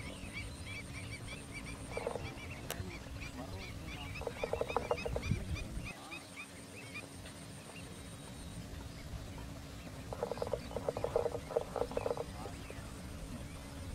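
Waterfowl calling: a rapid run of short, high chirps through the first half, and clusters of lower, pulsed calls a few times, loudest about ten to twelve seconds in, over a low wind rumble.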